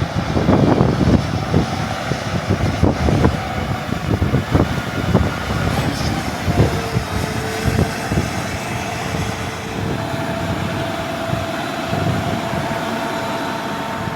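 Combine harvester running in a wheat field: a steady engine and machinery drone with irregular knocks and rattles. A steady hum joins in about halfway through.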